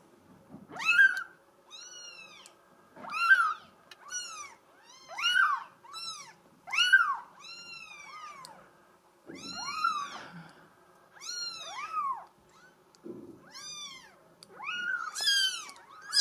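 Very young Bengal kittens mewing: a string of high-pitched mews, about one a second, each rising and then falling in pitch.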